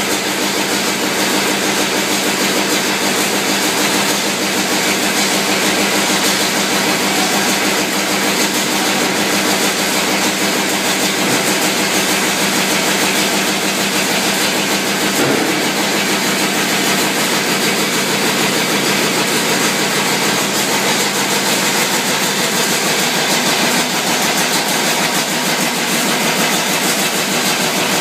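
Shellfish-processing machinery running steadily: a perforated stainless-steel conveyor line carrying top shell sea snails, a loud, even mechanical noise with a steady hum under it.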